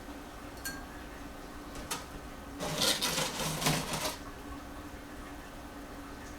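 Handling of packing in an opened reptile shipping box: a few light clicks, then about a second and a half of scraping and crinkling near the middle.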